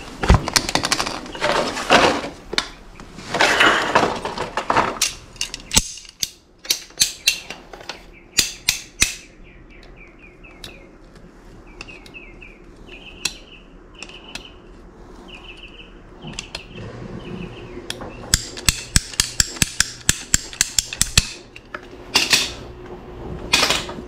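Hand work on PVC pipe and fittings: bursts of scraping, then runs of sharp clicks and knocks as pieces are cut and fitted together, with a string of short high chirps in the middle.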